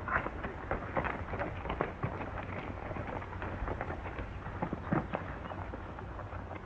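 Steady hiss and low hum of an old film soundtrack, with scattered clicks and knocks throughout.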